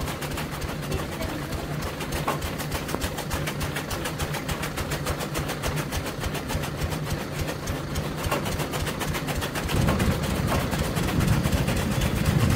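Power-driven chaff cutter (toka) running while green fodder stalks are fed in, its blades chopping in a rapid, regular clatter over a steady machine hum. About ten seconds in, a heavier, lower sound swells louder as the cutter takes more stalks.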